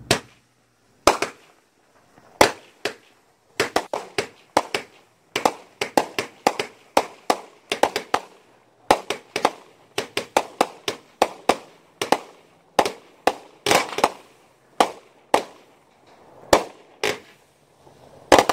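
Two 200-gram 16-shot consumer firework cakes firing together: a rapid, irregular string of sharp bangs, about two to three a second, as shots launch and burst overhead.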